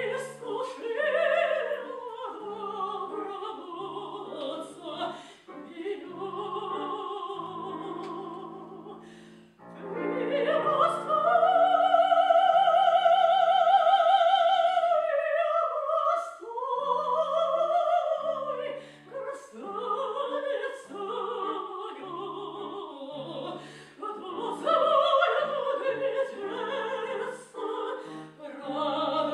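A woman singing in an operatic style with wide vibrato, accompanied by piano. About eleven seconds in she holds one long high note for some four seconds, the loudest part, then glides down into shorter phrases.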